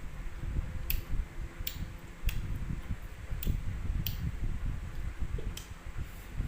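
Eating at the table: about six sharp clicks of chopsticks tapping a bowl, irregularly spaced, over a steady low rumble.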